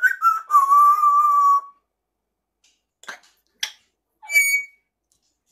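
African grey parrot whistling: a slightly wavering whistle held for about a second and a half, then a few short clicks and a brief, higher whistle about four seconds in.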